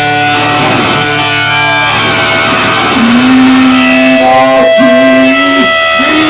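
Rock band playing live, led by loud electric guitar with long held notes; from about halfway a strong held note bends up and down in pitch.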